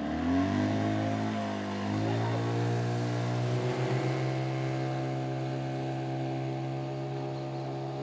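Boat outboard motor starting up and opening up: its pitch climbs quickly, steps up again about two seconds in, then holds at a steady, even drone.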